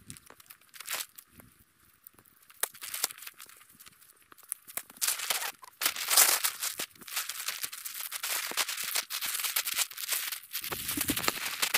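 Tent fabric rustling and crinkling as the tent is folded and packed away. Scattered light rustles at first, then denser, louder rustling from about five seconds in.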